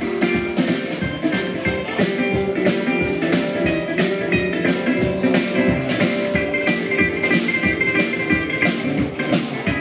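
Small live band playing an upbeat instrumental: guitar over a steady drum beat.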